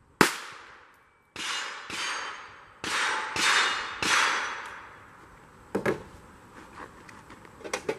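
A handgun fired six times at a Texas Star steel spinner target in the first four seconds or so, each shot followed by a long ringing, decaying tail. A few fainter knocks and clicks come near the end.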